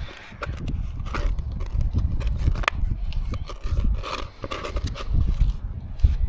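Wind rumbling on the microphone, with scattered clicks, knocks and scrapes.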